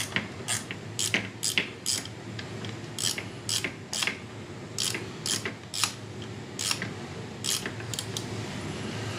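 Irregular sharp metal clicks and clinks, about one to two a second, as the Honda Grom's aluminium footpeg side plate and brake-pedal parts are handled and worked loose by hand.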